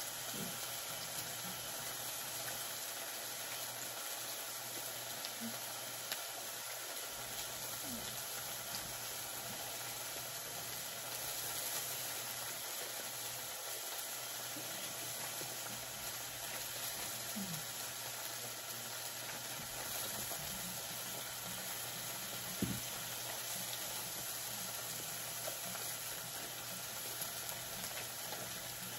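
Pork belly and onions sizzling on a tabletop electric griddle: a steady frying hiss, with two light clicks, about six seconds in and near twenty-three seconds in.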